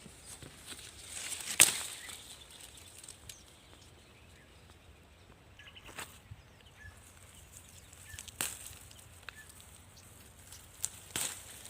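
Four sharp clicks or snaps, the loudest about a second and a half in, with faint short bird chirps between them.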